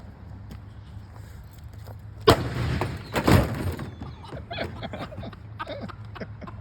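A sudden loud bang about two seconds in, from a charge set off inside a dishwasher. It is followed by about a second and a half of rushing, crackling noise with a second burst in the middle.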